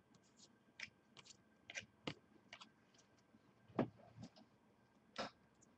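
Trading cards being handled and flipped through: a string of short, irregular clicks and snaps of card stock, with two louder snaps near four and five seconds in.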